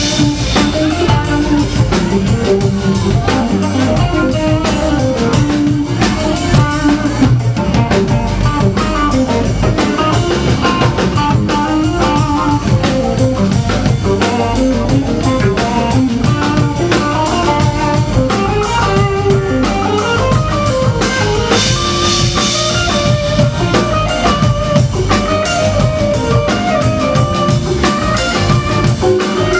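Live rock band playing: electric guitars over a drum kit, with keyboards.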